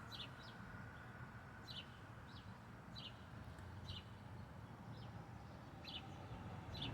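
Faint bird chirping: short, high, downward-sliding chirps repeated about once a second.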